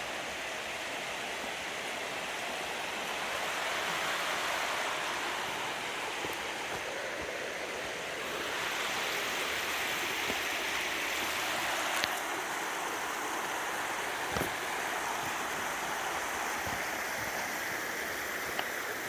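Flowing river water: a steady rushing that grows louder about four seconds in and again after about eight seconds, with a few faint clicks.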